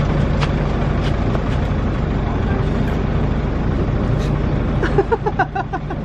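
A motor running steadily as a low, even hum, like an idling engine, with a few faint clicks and brief voices about five seconds in.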